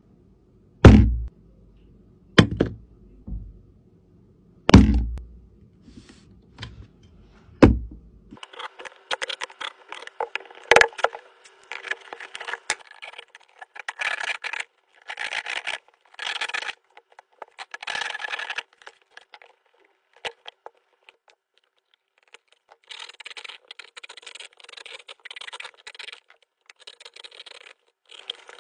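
A few heavy thumps in the first eight seconds. Then a utility knife scratches and cuts through a cardboard box in repeated strokes of a second or two, with short pauses between them.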